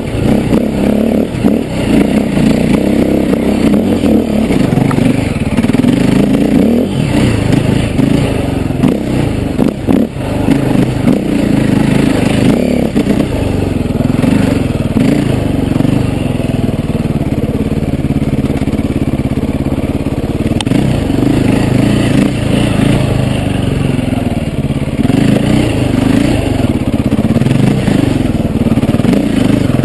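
KTM EXC enduro motorcycle engine, off-road, revs rising and falling with the throttle over rough ground, with a few brief knocks and clatter as the bike hits rocks.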